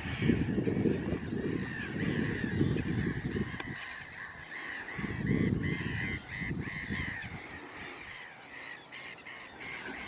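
Geese honking over and over in a rapid run of short calls, over gusts of wind rumbling on the microphone that come and go and are the loudest sound.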